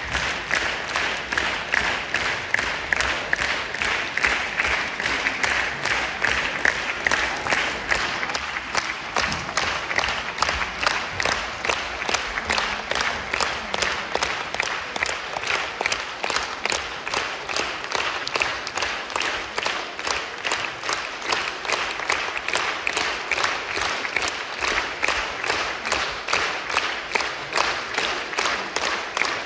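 Theatre audience applauding continuously, a dense unbroken patter of many hands clapping.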